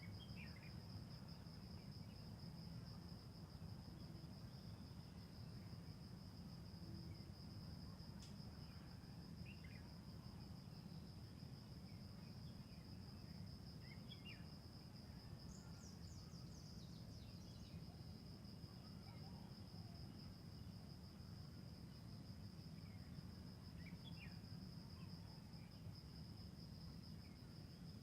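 Faint, steady high-pitched trill of crickets, with scattered short bird chirps and a brief flurry of birdsong about halfway through, over a low background rumble.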